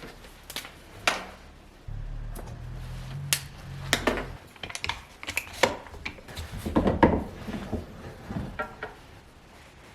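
Hard parts clicking and knocking together as they are handled, with a cluster of louder knocks about seven seconds in. A low hum runs underneath for about two seconds near the start.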